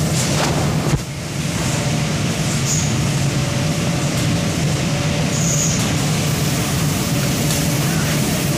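Steady industrial din of a factory spray-painting line: a constant low machine hum under a rushing, hissing air noise. There is a single short knock about a second in.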